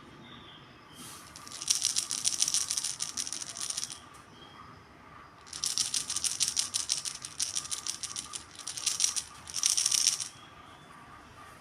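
Crocheted baby rattle shaken in two spells of rapid, bright clicking: one of about three seconds, then after a short pause a longer one of about five seconds.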